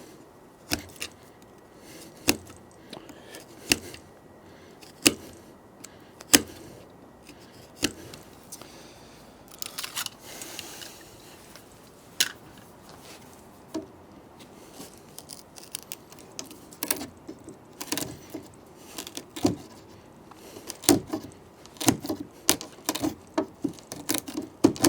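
A chisel being struck into wood to cut out the recess for a deadbolt strike. Sharp taps come about every second and a half at first, with a short scrape around the middle, then come faster and closer together in the last third.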